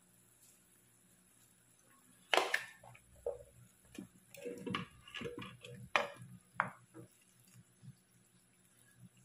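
Plastic spatula knocking and scraping against a plastic plate and a non-stick wok as squid balls and chicken balls are pushed off the plate and drop into simmering broth, then stirred. For about the first two seconds there is only a faint low hum. After that come a string of sharp knocks and scrapes with small splashes.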